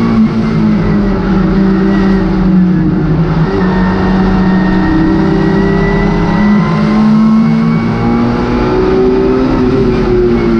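Vauxhall Nova rally car's four-cylinder engine worked hard under racing load, heard loud from inside the cabin, its note rising and dipping with the throttle.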